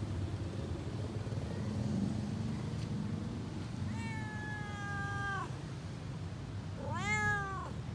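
A street cat meowing twice: a long, slightly falling meow about four seconds in, then a louder, shorter meow that rises and falls near the end, over a low steady background rumble.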